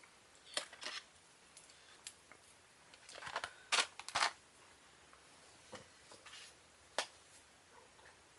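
Sticky tape being peeled off a plastic toy package, heard as scattered clicks and short crackles of tape and plastic. The loudest cluster comes about three to four seconds in.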